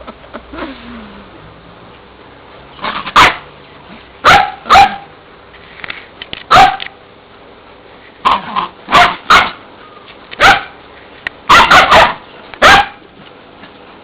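Dogs barking in play: about a dozen short, sharp barks at irregular intervals, starting about three seconds in, with a quick run of several barks near the end.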